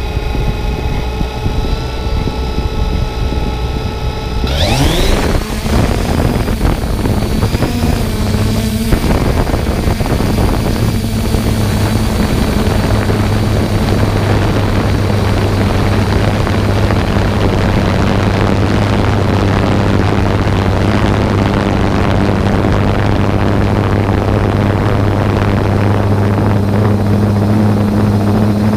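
Quadcopter drone's motors and propellers whirring up close. About four seconds in they spin up in a rising whine as the drone lifts off, then settle into a steady hum as it climbs and flies.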